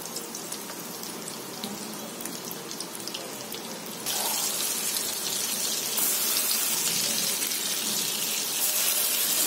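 Hot oil sizzling and crackling around egg-coated shami kababs shallow-frying in a pan. About four seconds in, as the kababs are turned over onto their raw egg-coated sides, the sizzle suddenly gets louder and hissier.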